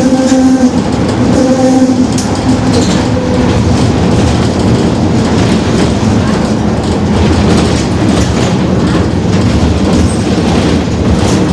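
Rear differential of a Mercedes-Benz OF-1721 city bus droning very loudly while the bus is driven: a steady pitched howl over the rumble and rattle of the moving bus, strongest in the first two seconds and then sinking into the general noise.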